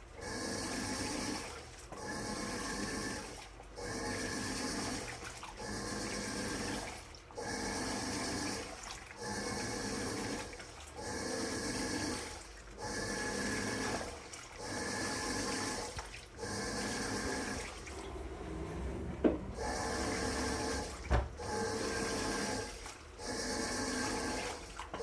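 Washing machine agitating, with its motor humming and water sloshing in even strokes of about a second and a half, each followed by a short pause as the drum reverses. Two sharp knocks come in the second half. The owner finds the operating sound abnormal, something the machine has never done before.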